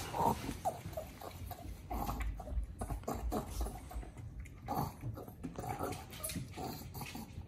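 Pug licking whipped cream out of a paper cup with its face pushed inside, making short, irregular wet licking sounds, while the cup shifts against the wooden tabletop.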